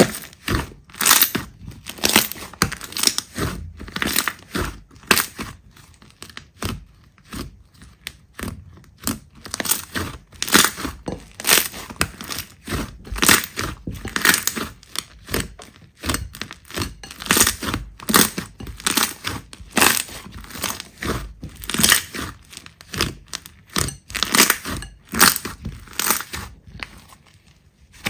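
Slime being squeezed and pressed by hand: a run of sharp, irregular crackling pops and squelches, several a second, with a brief lull near the end.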